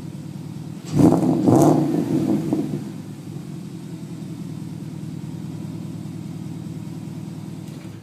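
2008 Porsche Cayenne GTS V8 idling through an exhaust with the secondary catalytic converters bypassed and 3-inch Magnaflow mufflers. About a second in it is revved in two quick blips, then settles back to a steady idle rumble.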